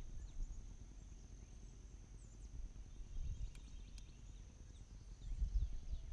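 Quiet outdoor ambience: a steady high-pitched insect drone, a few faint bird chirps, and a low rumble, with two faint clicks about three and a half and four seconds in.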